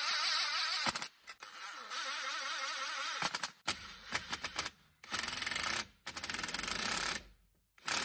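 Hand ratchet clicking rapidly as it drives a socket on a long extension, running nuts down onto the engine's valve cover studs. The clicking comes in several quick runs with short pauses between.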